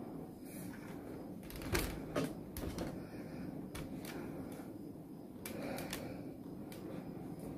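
A few sharp taps and knocks over a steady faint room hum: one loud pair about two seconds in and another cluster near six seconds.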